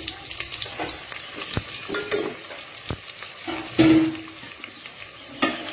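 Sliced onions, curry leaves and pounded ginger-garlic paste sizzling in hot oil in an aluminium pot while being sautéed. A metal spoon taps against the pot a few times, with one louder clank about four seconds in.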